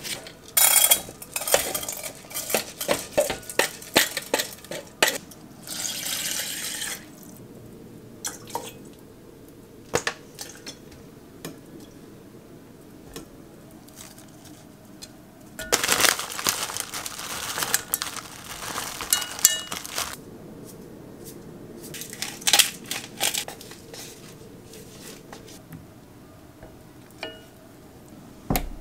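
Kitchen handling sounds: bursts of clinks, taps and clatter from dishes, utensils and an enamel pot, in three clusters with quiet stretches between, and a brief steady hissing noise about six seconds in.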